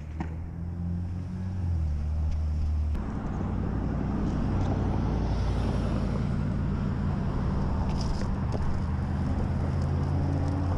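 Steady rumble of wind on a chest-mounted camera's microphone, with tyre noise, as a BMX bike is ridden along a road beside passing car traffic. It gets louder about three seconds in.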